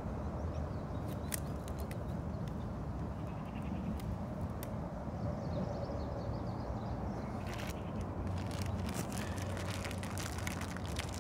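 Wind rumbling on the microphone, with a few scattered clicks early on and, about two-thirds of the way in, a run of close crackling and clicking as a package is handled.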